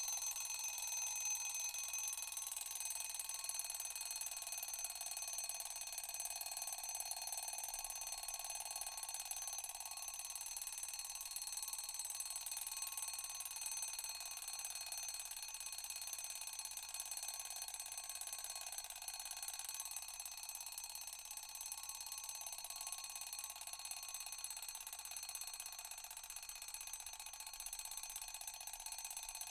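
Alarm clock ringing without a break, a steady high ring that eases off slightly toward the end.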